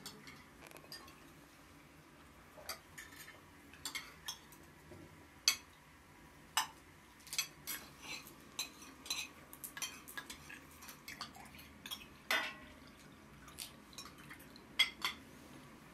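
Spoons and dishes clinking as people eat: scattered light clinks of cutlery against ceramic bowls, plates and glasses, at irregular moments, with a few sharper knocks.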